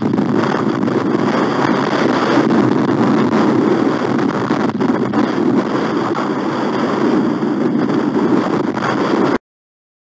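Strong wind blowing across the eagle-nest camera's microphone, a loud, steady rushing noise. It cuts off suddenly near the end.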